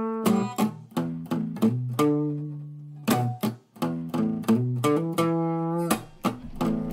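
Background music of a picked guitar: single notes plucked at a steady pace, with a couple of longer held notes.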